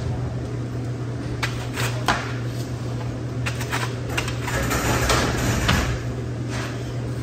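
Knife cutting and scraping through frozen beef sirloin tip on a cutting board: scattered clicks and scrapes, with a longer rasping stretch about five seconds in. A steady low machine hum runs underneath.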